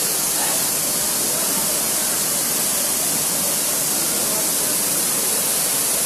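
Tall waterfall plunging onto rock and shallow water: a steady, even rush of falling water and spray.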